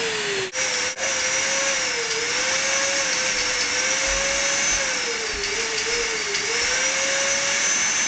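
Numatic Henry canister vacuum cleaner running with a steady motor whine. Its pitch sags and recovers several times, and it cuts out briefly twice near the start.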